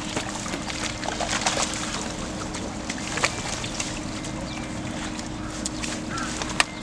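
Shallow pond water sloshing, with a few short splashes, over a steady low hum.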